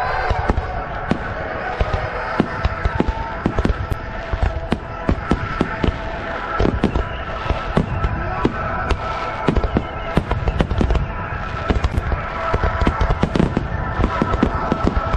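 Aerial fireworks shells bursting in a dense barrage, sharp bangs coming several a second in an irregular stream.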